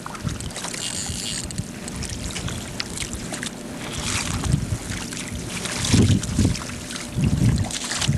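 Wind buffeting the microphone over water splashing in the shallows, with a few stronger low gusts near the end.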